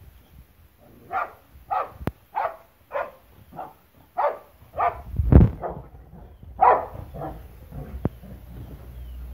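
Boxer dog barking in a steady run of short barks, nearly two a second, while sparring with a rooster. A heavy thump about five seconds in.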